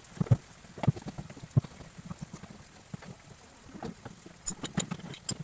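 Irregular knocks and clicks of washing-machine parts being handled during disassembly: a few dull thumps in the first two seconds, then a quick run of sharper clicks near the end.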